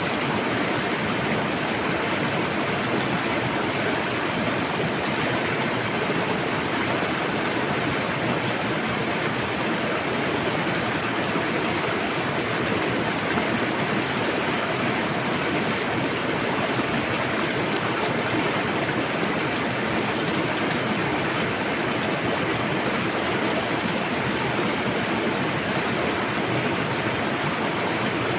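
Fast-flowing river rushing over rocks, a steady, even roar of water.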